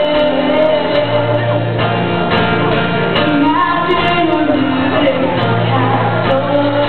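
A live song: a solo singer's voice carrying a melody over instrumental accompaniment, with long held bass notes, heard through a large school gym.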